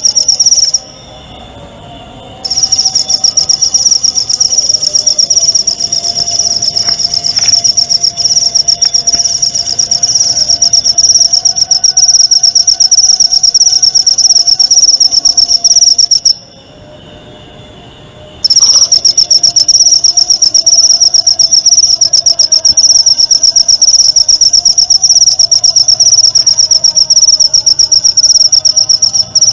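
Singing insect's loud, high, fast-pulsing trill, kept up steadily and breaking off twice: about a second in and again about halfway, each time for a second or two.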